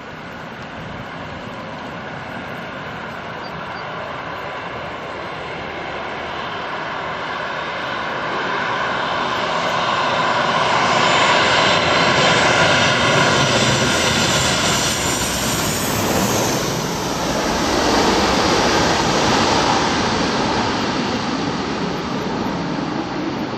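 Jet airliner landing, passing low overhead: the engine roar with a high whine grows steadily louder for about ten seconds, peaks around the middle, then stays loud and slowly eases toward the end.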